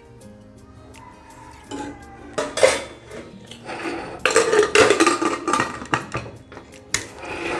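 Metal clatter and scraping of a pressure cooker's lid being set on the cooker and locked shut, with clinks from a metal ladle. The clatter comes in several bunches, loudest a little past the middle.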